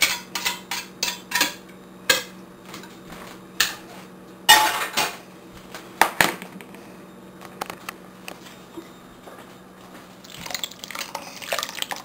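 Utensils clinking, knocking and scraping against a ceramic slow-cooker crock as chilli is made: a quick run of about six clicks at first, scattered knocks, one longer scrape about four and a half seconds in, and stirring in the pot near the end.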